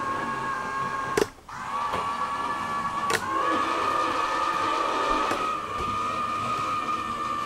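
Two cheap small geared DC motors driving a toy car, a steady high gear whine. It cuts off with a click about a second in, starts again, and goes a little higher and louder after another click about three seconds in, with a further click about five seconds in, as the controller switches are flipped.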